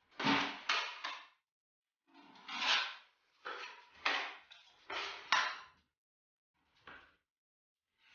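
Steel plastering knives scraped against each other, working and loading wall filler: a series of short metal scrapes, some in quick pairs, with a short last one near the end.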